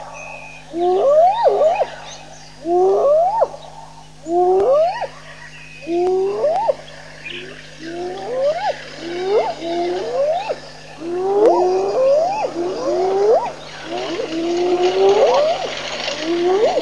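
Spotted hyena whooping: a long series of calls, each rising and then falling in pitch, about one every second and a half. They run closer together and overlap in the second half.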